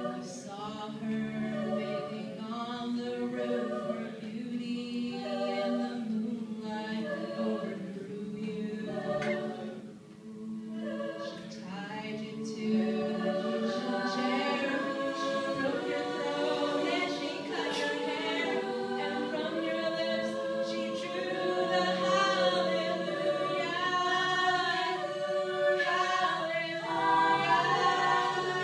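Mixed a cappella group singing: a female soloist on a microphone over sustained backing harmonies and a held low bass note. The singing swells to a fuller, louder passage about twelve seconds in.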